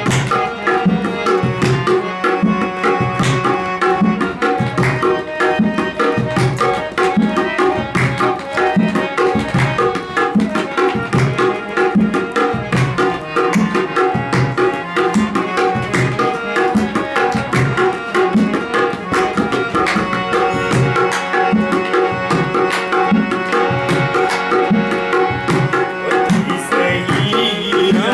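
Harmonium playing a sustained melody over a steady rhythm of hand-played drum strokes on a dholak, an instrumental passage of a Balochi ghazal. A singing voice comes in near the end.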